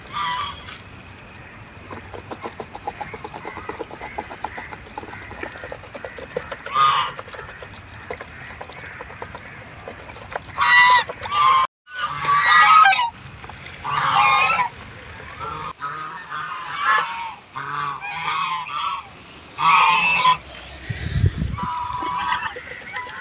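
Domestic geese honking at intervals. A run of loud honks comes about halfway through, and more follow near the end.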